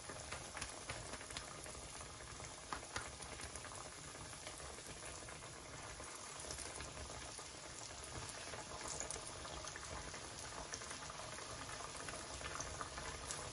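Chicken shami kebabs shallow-frying in hot oil in a stainless steel pan: a steady sizzle with a dense patter of small pops and crackles, a little louder in the second half.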